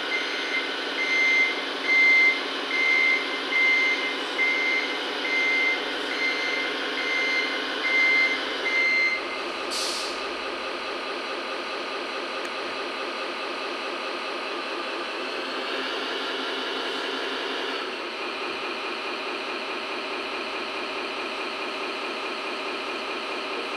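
Sound module of an RC MAN tractor-trailer playing a diesel truck engine running, with a reversing beeper sounding about once a second that stops about nine seconds in. A short air-brake hiss follows, then the engine runs on steadily, a little louder for a couple of seconds in the second half.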